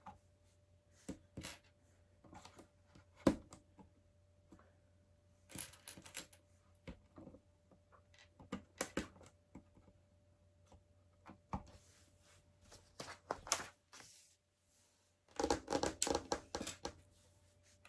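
LEGO bricks being handled and fitted: scattered sharp plastic clicks and knocks as pieces are picked up and pressed together, with a denser patch of rattling near the end.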